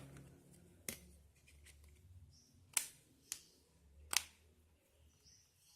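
Four sharp plastic clicks from a Lenovo A6000 smartphone being handled, the second and last the loudest.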